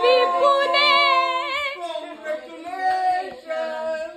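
Several people's voices raised together at once in an excited, sing-song celebratory cheer, held on long notes and loudest in the first two seconds.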